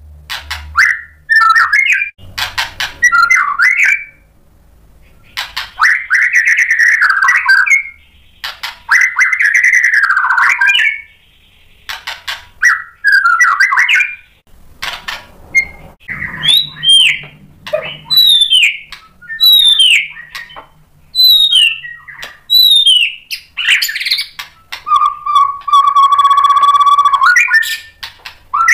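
White-rumped shama (murai batu) singing a loud, varied song packed with mimicked phrases: one phrase after another, each a second or two long, of fast slurred whistles and chatter. A run of short falling whistled notes comes in the middle, and a long buzzy held note comes near the end.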